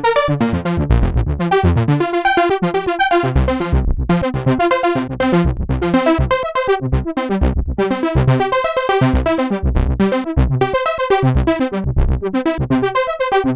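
Sequential Trigon 6 analog polyphonic synthesizer playing its 'Trancer Arp' preset: a fast arpeggiated pattern of short, rapidly repeating notes over regular pulsing low notes.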